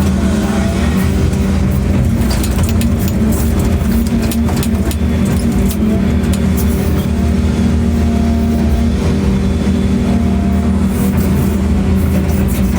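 Excavator's diesel engine running steadily under load, with scattered clicks and knocks over it.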